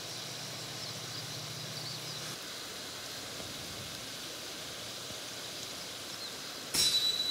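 Faint, steady rush of a river's flowing water with a few faint high chirps. Near the end a louder rush of the river's current cuts in suddenly.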